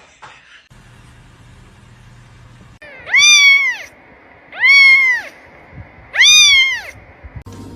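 A cat meowing three times, loud calls of about a second each, every one rising and then falling in pitch.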